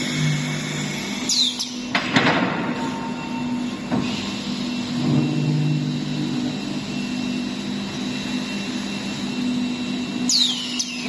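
Woodworking machinery running with a steady hum, with a short rattling clatter about two seconds in. High falling chirps come near the start and near the end.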